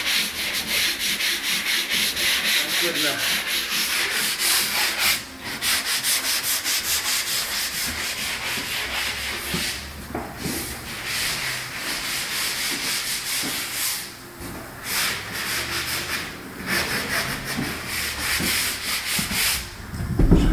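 Sandpaper rubbed by hand along a wooden stair railing in quick back-and-forth strokes, about three a second, with a few short breaks.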